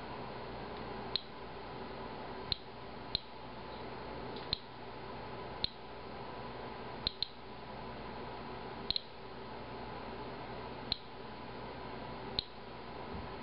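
Inspector Alert Geiger counter giving short, high clicking chirps at random, uneven intervals, about eleven in all and sometimes two close together, each chirp one detected radiation count. A steady low room hum runs underneath.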